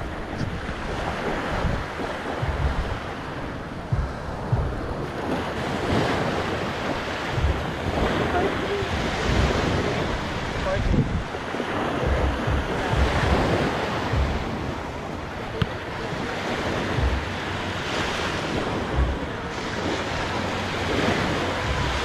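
Small waves breaking and washing up a sandy beach, the surf swelling every few seconds, with wind gusting on the microphone.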